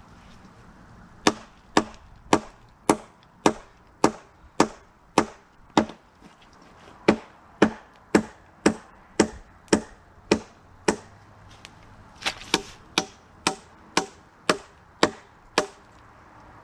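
Repeated sharp strikes on wood, about two a second, in three runs of eight or nine blows with short pauses between, each with a slight ring.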